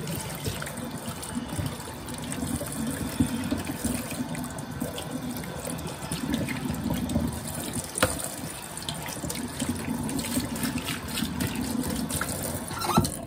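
Kitchen faucet running into the sink while a whole catfish is rinsed and rubbed by hand under the stream, with splashing. A few sharp knocks of handling, one about three seconds in and one about eight seconds in.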